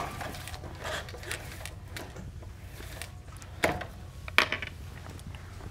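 Pull-down projection screen being set in place: light mechanical clicks and knocks from its spring-roller latch and bottom bar, two sharper ones a little past halfway, over a low steady room hum.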